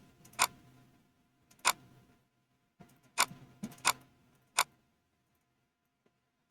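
Computer mouse clicks: about six short, sharp clicks at irregular intervals, two of them close together a little past three seconds in.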